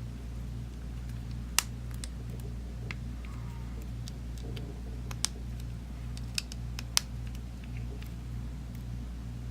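Scattered sharp clicks and ticks of small tools and parts being handled on an opened smartphone's circuit board, as ribbon-cable connectors are fitted. A steady low hum runs underneath.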